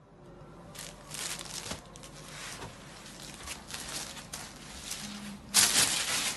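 A Kanjivaram silk saree with zari weaving rustling and swishing as it is handled and spread out by hand. The swishes are uneven, and the loudest comes near the end.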